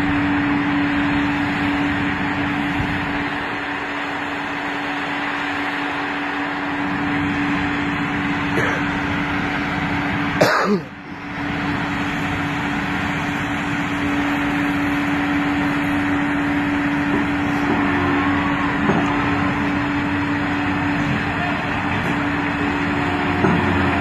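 Crawler crane's diesel engine running steadily under load with a constant hum, over the general noise of the site. A click and a brief drop in the sound come about halfway through.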